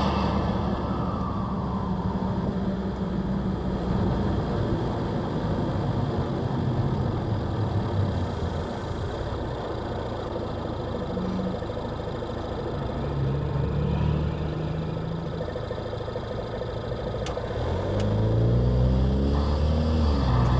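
Ford 2.0 EcoBoost turbocharged four-cylinder in a 2017 Escape, breathing through a K&N drop-in filter with the airbox lid off, running at a steady drone. Near the end it accelerates with rising pitch.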